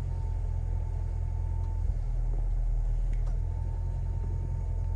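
Hyundai i10 engine idling steadily with a new water pump, heard from inside the cabin as a low, even rumble with no bearing noise. A faint high steady tone fades in and out twice over it.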